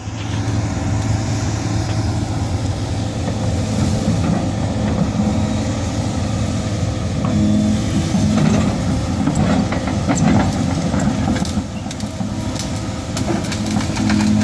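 Kobelco SK260 excavator's diesel engine running steadily, with scattered sharp clicks and knocks over it in the second half.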